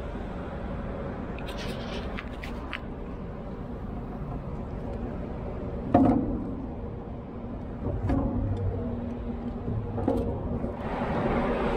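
Wooden steps of a rope pilot ladder knocking against a ship's steel hull as someone climbs it, with light clicks early on and three single knocks, the first the loudest. A steady low rumble runs underneath throughout.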